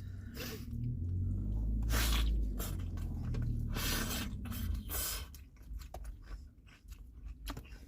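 A person chewing a mouthful of fish taco close to the microphone, with irregular chew and bite noises every second or so. A low rumble runs under the first half.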